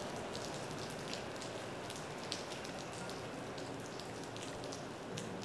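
Steady rain, with individual drops landing close by in irregular, sharp ticks.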